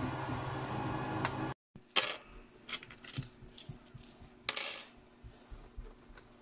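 A 3D printer running with a steady hum and tones from its fans and motors, cut off about a second and a half in. Then small hard plastic toy parts click and clatter as they are set down on a wooden tabletop, a handful of separate clicks, the loudest about two seconds in and a longer clatter near the middle.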